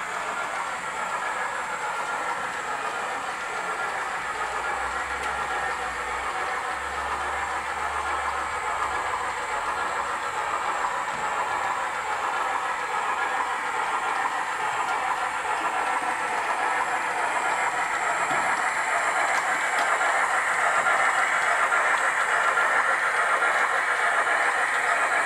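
Hornby OO gauge model Merchant Navy class locomotive running on model track with a steady hiss-like running noise. It grows gradually louder over the second half as the train draws close.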